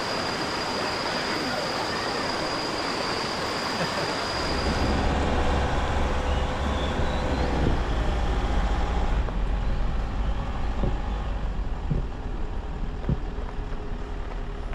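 River water rushing over rocks, with a steady high tone over it, for about four seconds. Then it gives way to a steady low rumble with a few faint knocks near the end.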